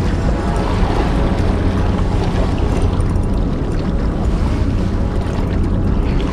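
Wind buffeting the microphone with sea washing against breakwater rocks: a steady rushing noise over a constant low rumble.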